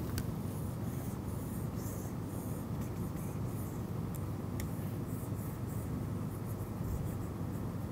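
Stylus scratching across a pen tablet in short strokes, erasing handwritten notes, over a steady low hum.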